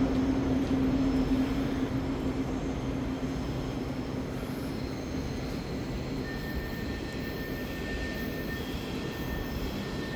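ÖBB Cityjet (Siemens Desiro ML) electric multiple unit standing at an underground platform, its on-board equipment humming and rushing steadily. A low hum fades over the first few seconds, and a thin high whine comes in about six seconds in.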